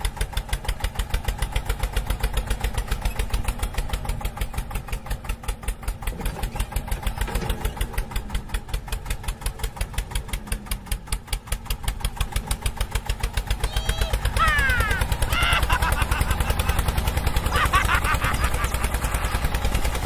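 A small engine running at an even, rapid putter, about eight to ten beats a second, getting louder about two-thirds of the way through. Short high-pitched chirps and gliding squeaks come in over it near the end.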